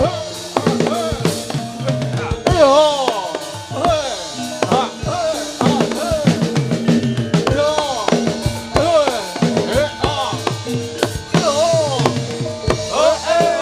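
Javanese jathilan accompaniment: gamelan-style music driven by loud, busy drumming over sustained metallic pitched tones, with many notes bending up and down in pitch about once a second.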